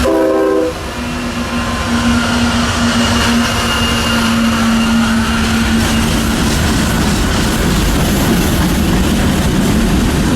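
Norfolk Southern train rolling past at close range: a steady, loud rumble and rail noise throughout, with a steady low tone that fades out about six seconds in.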